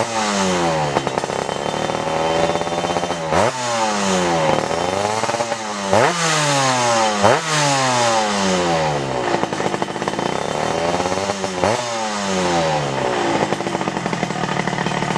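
Small motorbike engine revved over and over: several sharp throttle blips, each rising quickly in pitch and then falling slowly back, with gentler swells in between.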